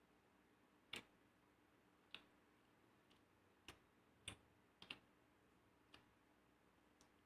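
Faint, irregular clicks and taps, about nine in seven seconds, from eating fried rice by hand off a plate.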